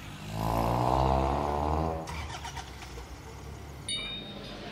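A motor vehicle's engine runs loudly for about a second and a half, then drops away. A few light clicks follow, then a sudden click with a short bright ring near the end.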